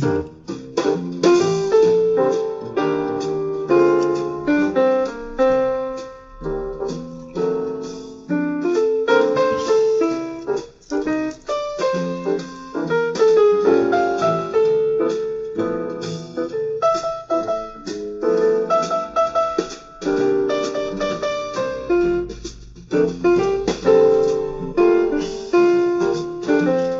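Background piano music: a steady run of single notes and chords with brief dips in loudness.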